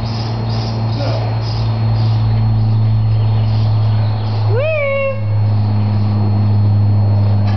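A steady low hum runs throughout. About four and a half seconds in, a single short call rises sharply in pitch, then falls away.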